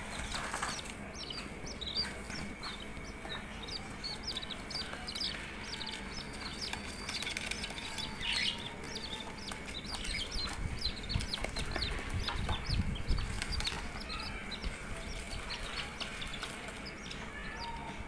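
Budgerigars chirping: a continuous rapid run of short, high chirps, several a second.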